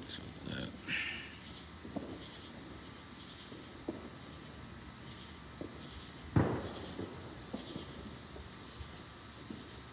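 Crickets and other night insects trilling in a steady high chorus, with a second insect calling in short, higher pulses about every two seconds. A single sharp bang about six seconds in stands out above the chorus.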